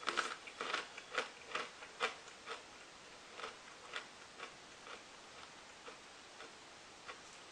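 Crunching while chewing a popped corn-kernel snack: a quick run of crisp crunches over the first two seconds or so, then fainter, more spaced-out crunches.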